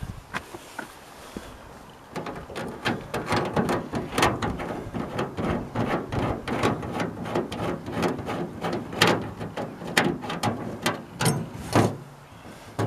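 Rapid metallic clicking and knocking, several strokes a second, as a steel spare-wheel-carrier bracket is unbolted from a van's rear door and swung loose on its bolt.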